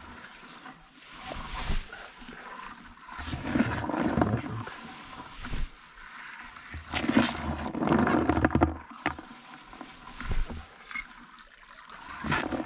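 Rustling and wind buffeting the microphone, in swells, while raw corn kernels are handled in a plastic bowl and tossed in as groundbait, with a few short sharp sounds near the end.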